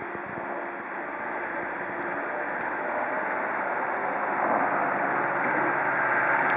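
Heavy engine running steadily, growing a little louder in the second half.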